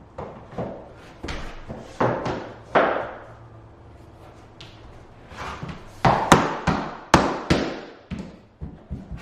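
Vinyl click-lock planks being knocked together with a hammer to seat the joint tight: a few separate knocks, then a quick run of sharp hammer taps from about six seconds in.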